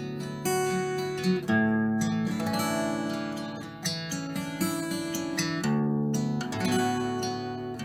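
Background music on acoustic guitar, its chords changing every second or two.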